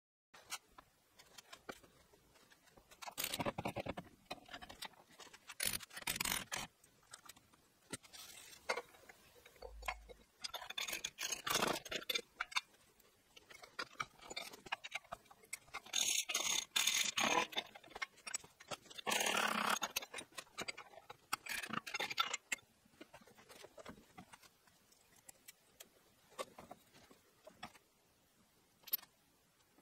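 Steel gears and shafts being handled and worked on a bench: scattered metal clinks and scrapes, with several longer rubbing noises lasting a second or so, and quieter toward the end.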